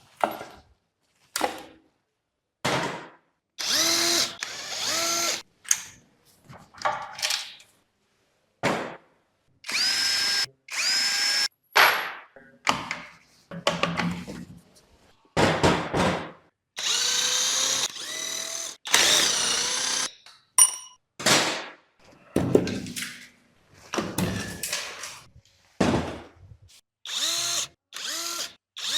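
Cordless power driver running in a string of short bursts, each rising in pitch as the motor spins up, with abrupt stops and gaps between, as bolts are undone during an engine teardown.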